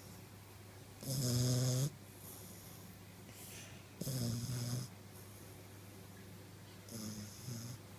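British bulldog puppy snoring in its sleep: three snores about three seconds apart, each under a second long.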